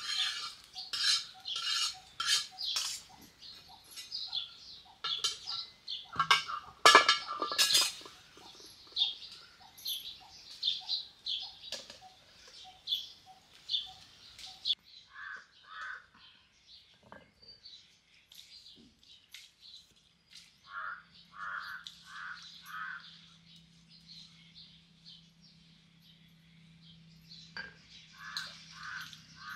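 Metal spatula scraping and clattering on an iron griddle (tava) as roasted onion is scraped off, loudest about seven seconds in, then dying away about eight seconds in. In the second half, crows caw in short runs of two to four calls.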